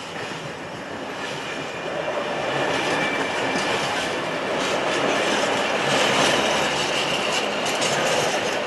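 Container freight train wagons rolling past, with wheels clattering over the rail joints and a thin high wheel squeal. The sound grows louder from about two seconds in.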